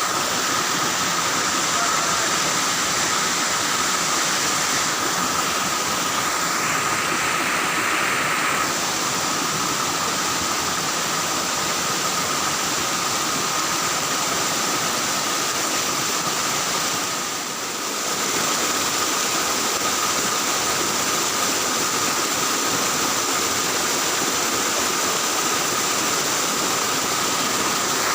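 Steady rush of flowing water, with a thin, steady high whine running over it.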